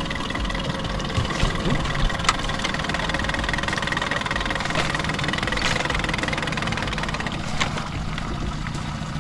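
Outboard boat motor idling steadily, with a few sharp clicks in the first couple of seconds.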